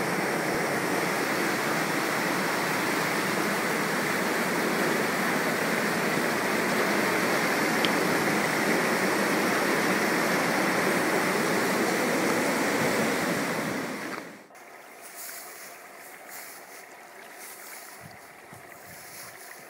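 Steady rush of water from the Vauréal waterfall. It cuts off abruptly about fourteen seconds in, leaving only a faint outdoor background.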